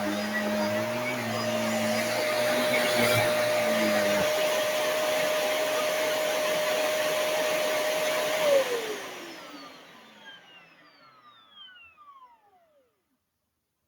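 Vacuum cleaner running steadily with a high motor whine, and a lower hum under it that cuts out about four seconds in. About eight and a half seconds in it is switched off, and the motor spins down with a falling whine that fades to silence.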